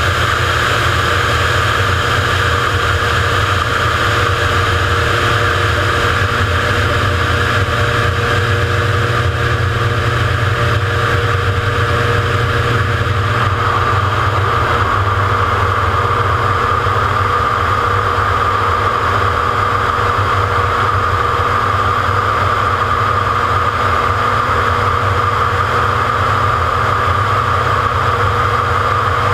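Single-engine aerobatic propeller plane in flight: piston engine and propeller running steadily, mixed with wind rush over the wing-mounted camera. The tone shifts slightly about halfway through.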